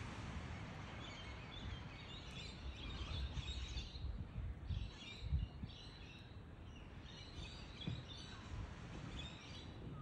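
Birds chirping in repeated short clusters of high calls, over a steady low rumble of outdoor background noise.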